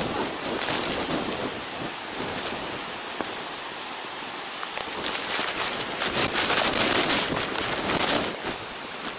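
Waterfall: a steady rush of falling, splashing water, louder for a few seconds from about five seconds in.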